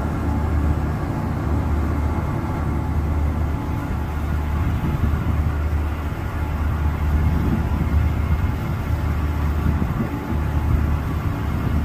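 Car ferry's engines running under way, a steady low drone.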